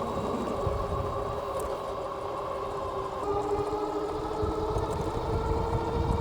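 Hub motors of a Philodo H8 dual-motor e-bike whining steadily while riding, with the pitch shifting about three seconds in, over wind rumbling on the microphone.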